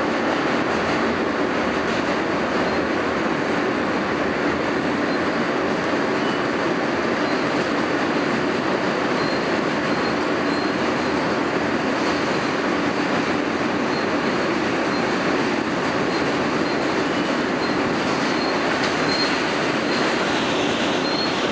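Steady rumble and rattle of an R160A subway car's wheels on the rails at running speed, heard from inside the car on an elevated line. A few faint, brief high-pitched squeals come from the wheels, twice in small clusters.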